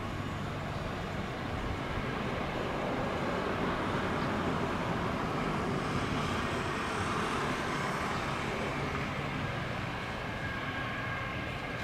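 Boeing 777-300ER's twin GE90-115B turbofans at takeoff thrust as the jet lifts off and climbs away: a steady jet-engine rumble that swells to its loudest about halfway through, with a hiss added on top, then eases slightly.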